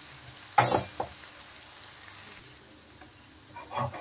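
Soybean pakoras deep-frying in hot oil in a kadai: a steady sizzle, with one sudden loud clatter about half a second in. Near the end a run of short repeated sounds begins.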